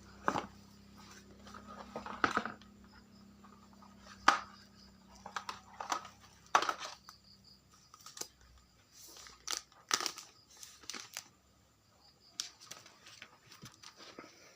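Smartphone packaging crinkling and clicking as it is unboxed by hand, in irregular sharp crackles.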